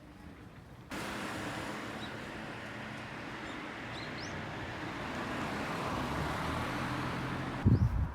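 Steady vehicle running noise: an even rushing hiss with a low engine hum, cutting in sharply about a second in and swelling slowly. It ends with a couple of loud low thumps near the end.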